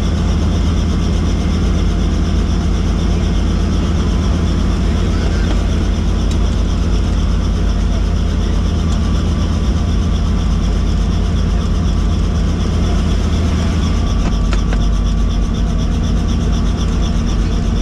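Helicopter running: a steady, loud mechanical drone of rotor and engine, unchanging throughout.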